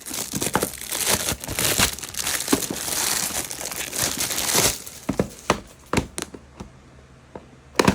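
Small plastic packaging bag crinkling and tearing as it is opened by hand for about the first four and a half seconds, then scattered light clicks and taps.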